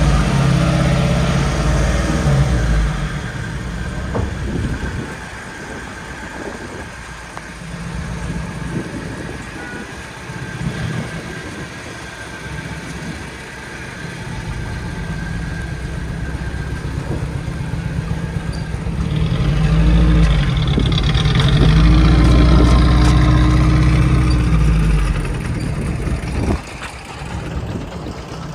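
A 1951 Morris Minor's four-cylinder engine running steadily, mostly at idle. It grows louder again past the middle, and the car pulls away near the end.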